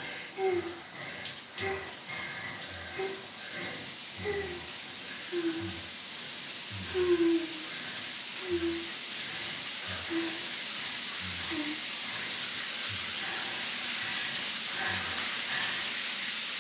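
Running water, like a shower or tap, a steady hiss that grows louder, with short low murmured voice sounds about once a second over it.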